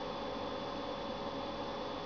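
Steady room tone: an even hiss with a faint hum and a thin high whine, the sound of running electronics in a small room.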